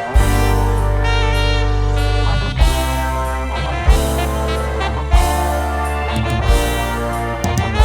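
Music: a held, reedy melody over heavy bass, punctuated by a strong drum hit roughly every second and a quarter.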